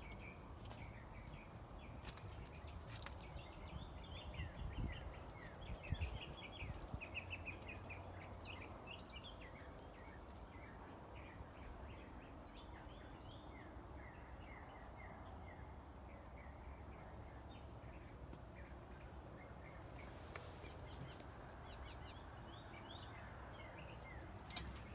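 Birds chirping: many short calls repeating throughout, over faint steady background noise. A few knocks sound in the first several seconds.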